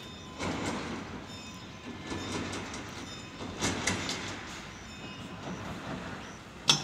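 WAG-9HC electric freight locomotive moving off slowly, its wheels running over the rails with a few louder clanking surges and a sharp click near the end.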